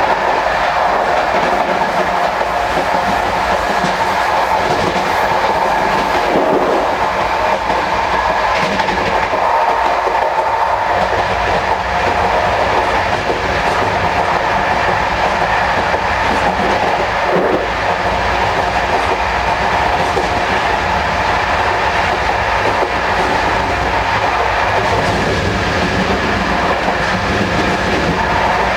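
CP Corail passenger coaches running at speed, heard from inside the gangway between two coaches: a loud, steady rumble and rattle of the wheels on the rails, with a few faint knocks.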